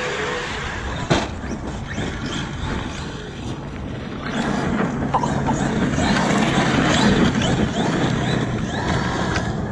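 Large electric RC trucks running on loose gravel: brushless motor whine and tyres churning gravel, with a sharp knock about a second in, fitting a landing from a jump.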